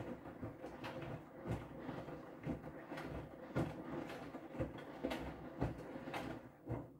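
Whirlpool FreshCare+ front-loading washing machine tumbling its wash load: the drum motor hums while the wet laundry and water slosh and drop with a thump every half second to a second. The drum stops turning right at the end.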